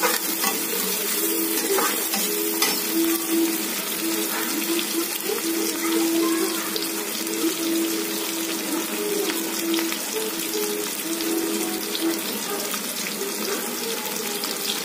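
Sliced onions, potatoes and green chillies sizzling steadily in hot oil in an aluminium kadai as they are sautéed, with a few light clicks.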